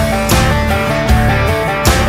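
Background rock music with guitar, bass and a steady beat.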